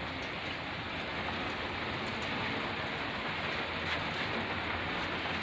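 Steady rain falling on the roof of a box truck, heard from inside the cargo box.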